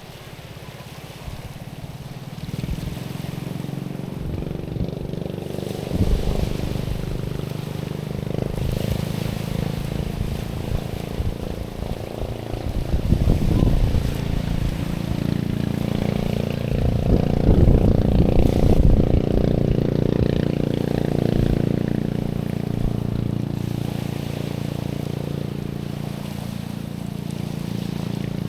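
Waves washing over stones at the shoreline, mixed with the steady drone of an engine that grows louder toward the middle and fades toward the end.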